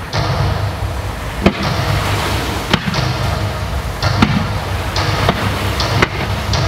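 Fireworks display: aerial shells bursting with sharp bangs about once a second, over a steady hissing crackle.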